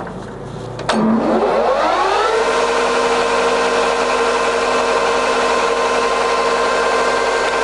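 C6256 centre lathe's spindle and headstock gears starting up at 1100 RPM after two sharp clicks: the gear whine rises in pitch for about a second and a half, then runs steadily.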